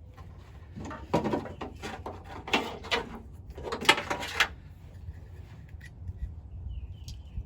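Hands handling plastic light parts and wiring, heard as three short bursts of rustling and clicking about one, two and a half, and four seconds in.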